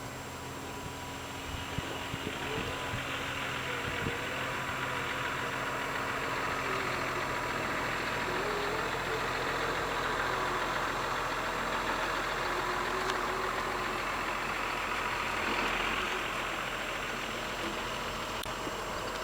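Steady low motor hum under a broad, even hiss that swells a little in the middle and then eases.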